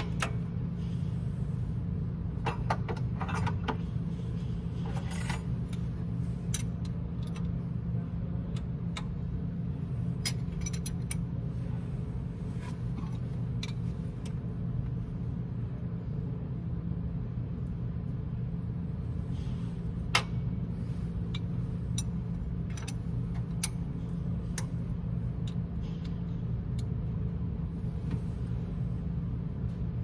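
Light metallic clicks and clinks of hand tools working on a Mack MP8 diesel engine's exposed rocker arms and injectors, scattered through, with two sharper clicks about two-thirds of the way in. A steady low hum runs underneath.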